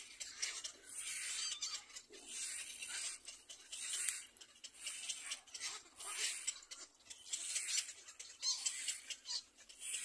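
Nestling birds calling from the nest in raspy, hissing bursts about once a second, with a few short squeaky notes among them.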